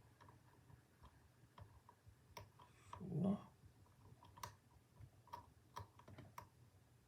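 Faint, irregular metallic clicks and ticks of a thin steel hook pick probing and lifting pin stacks inside a padlock's paracentric keyway under light tension.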